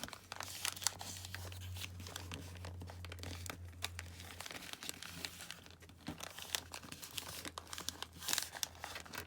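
Paper being handled, folded and creased by hand: irregular crinkling and rustling with scattered small taps and scrapes.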